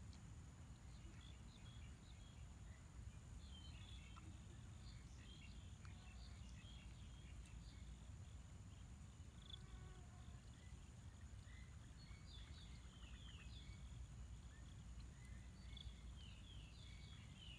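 Faint outdoor ambience: scattered short bird chirps and twitters over a low rumble, with a steady thin high whine. The chirps come in denser clusters in the second half.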